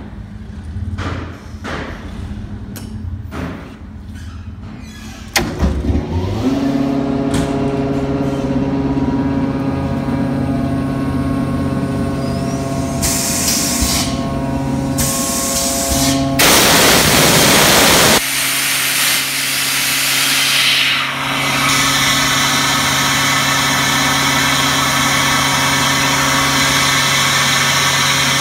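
Davey 25 hp rotary vane air compressor and its three-phase electric motor starting up about five seconds in, spinning up within a second or two and then running with a steady hum. A few knocks and clicks come before the start, and about halfway through there are several seconds of loud hissing, after which the running sound carries a steady hiss.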